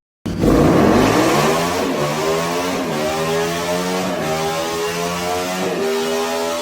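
Motorcycle engine sound revving up: the pitch climbs steeply just after the start, then dips and climbs again several times, like shifts through the gears.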